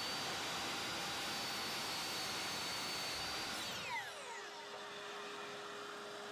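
Miter saw running at full speed with a high steady whine while cutting a thin strip of pine. About three and a half seconds in, the trigger is released and the blade spins down with a falling pitch, leaving a faint steady hum.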